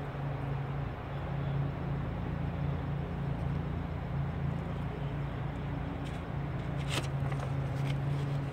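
Steady low hum of a running motor, with a few light clicks about seven seconds in.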